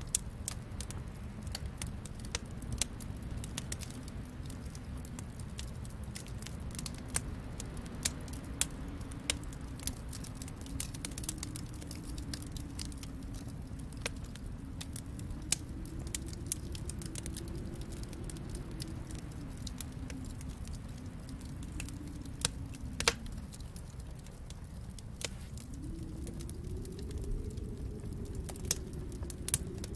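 Wood fire crackling in a fireplace, with irregular sharp pops over a low rumble that slowly rises and falls.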